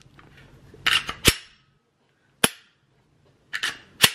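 Unloaded Glock 43X 9mm pistol being worked by hand: a couple of sharp metallic clacks about a second in, a single crisp click about halfway through, then another quick cluster of clacks near the end. These are the slide being racked and the light trigger being dry-fired.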